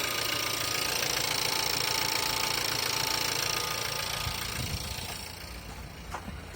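Volkswagen Tiguan's 1.4 TSI CZDA four-cylinder turbo petrol engine idling after a cold start, carrying an extraneous noise that shows on a cold engine. The sound gets quieter about five seconds in, with a few faint clicks after.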